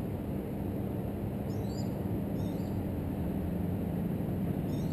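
Steady low outdoor rumble with a faint distant engine hum, while a small bird chirps three times, each a short high call that sweeps down and up.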